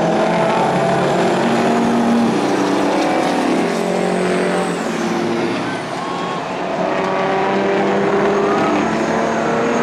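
Engines of several racing semi-truck cabs running hard together around a dirt oval, several engine notes at once, shifting in pitch as the trucks race. The sound dips briefly about six seconds in.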